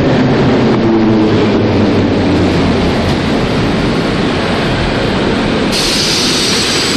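Hamburg S-Bahn electric train running into the platform and coming to a stop: a steady low hum fades over the first couple of seconds under the rumble and wheel noise. A sudden hiss starts near the end.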